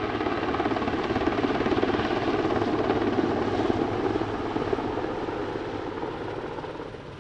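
Swiss Air Force Super Puma helicopter in display flight: a fast main-rotor chop over the sound of its twin Turbomeca Makila turboshaft engines. It is loudest a second or two in, then fades toward the end as the helicopter reverses away and climbs.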